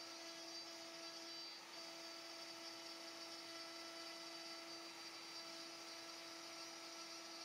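The MPCNC's router spindle runs with a steady high whine and a faint hiss while a 6 mm end mill clears an inlay pocket in an end-grain wooden cutting board. There is a brief dip about one and a half seconds in.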